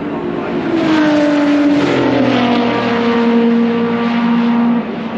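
Classic touring race cars passing on the circuit at racing speed. Their engine notes drop in pitch as they go by, then hold steady and cut back near the end.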